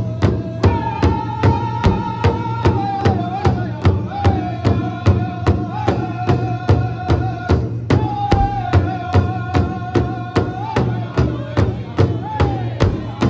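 Powwow drum group singing an intertribal song in high, held voices while several drummers strike one large hide-headed powwow drum together in a steady beat of about three strokes a second. The sung lines slide down at the end of each phrase, and a new high phrase begins about halfway through.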